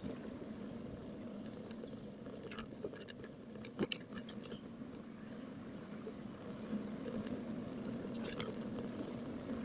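Steady rumble of wind and tyre noise on a moving bicycle, with scattered clicks and rattles, a sharp pair about four seconds in.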